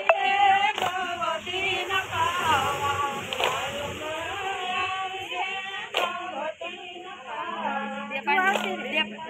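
Group of women singing a Gujarati garba song together, with a sharp handclap about every two and a half seconds.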